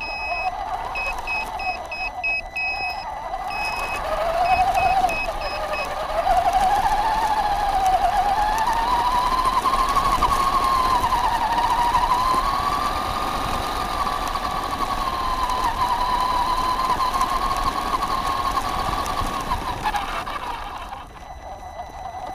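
Traxxas Stampede 4x4 RC car's electric motor and gearbox whining as it drives over gravel, the whine rising and falling in pitch with speed, then easing off near the end. In the first few seconds the car's horn sounds a series of short, high beeps.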